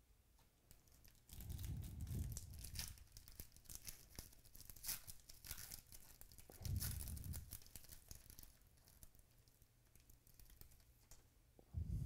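A foil-wrapped pack of football trading cards is torn open by hand, the wrapper crinkling and tearing in bursts of crackle. There are three dull low bumps from handling.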